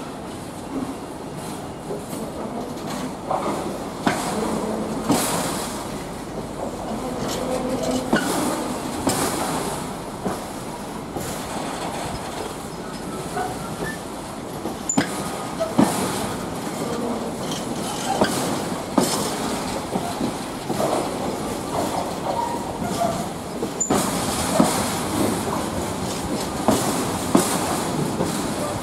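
A train running on the rails: a steady rumble of wheels on track, with repeated clicks and knocks as the wheels cross rail joints and a few brief wheel squeals.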